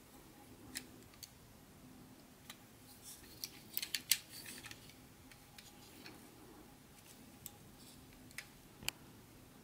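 Light plastic clicks and taps from a Bachmann HO-scale plastic missile car being handled and turned over in gloved hands, with a quick cluster of clicks about four seconds in and a sharper click near the end.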